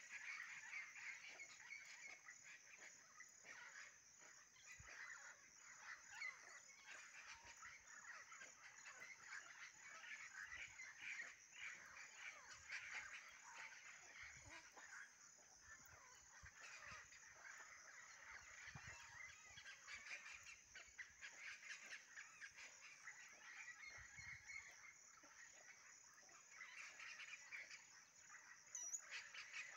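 Faint tropical countryside ambience: a steady high insect drone with a chorus of irregular bird calls throughout, and a few quick high chirps near the end.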